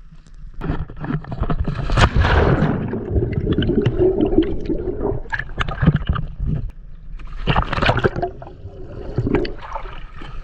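Sea water splashing, sloshing and gurgling around a camera held at the surface as it dips under and back out, in uneven bursts with sharp crackles of bubbles, heaviest in the first half and again near the end.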